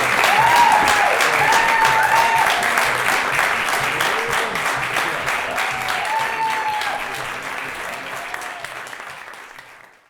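Audience applauding, with voices calling out over the clapping; it fades out near the end.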